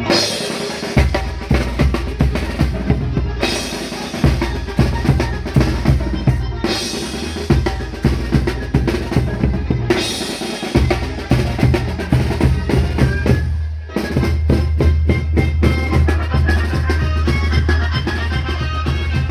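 Tecnobanda music: a drum kit beats out kick and snare over a heavy bass line. The band briefly thins out about two-thirds through, then comes back in full.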